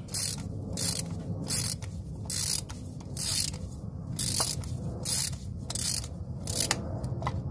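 Hand ratchet on a spark plug socket and extension, unscrewing a spark plug from a 2.0 L Ford engine: the pawl clicks in short bursts on each return swing, about two swings a second.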